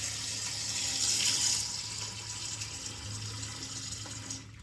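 Water running into a container of carrots as it fills, louder for the first second or so, then softer, stopping shortly before the end.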